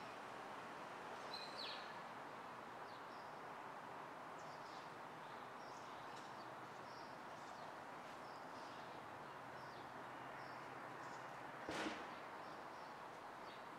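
Faint, steady hum of distant city traffic with small birds chirping on and off over it. A single sharp knock sounds about twelve seconds in.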